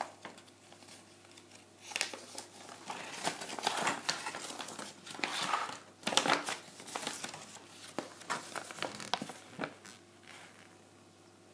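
Paper instruction leaflet pulled from a cardboard box and unfolded by hand: crinkling and rustling in irregular bursts with a few sharp paper snaps, dying down near the end.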